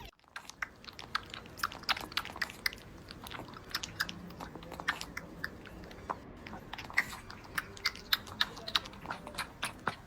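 Young kitten drinking milk close to the microphone: a quick, irregular run of wet clicking and smacking sucks, several a second.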